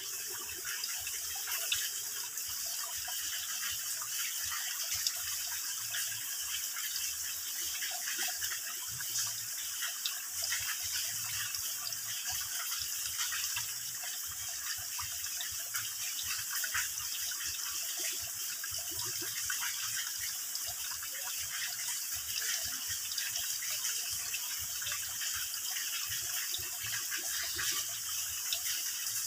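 Water dripping and trickling from a mossy rock overhang into a shallow pool. It makes a steady splashing hiss over a continuous patter of many small drops.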